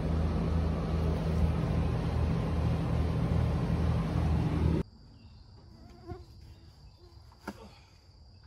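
A loud, steady, buzzing roar with a pulsing low hum, as from the gas burner under a crawfish boiling pot. It cuts off suddenly about five seconds in. After that comes a faint, steady, high insect trill with a few light clicks.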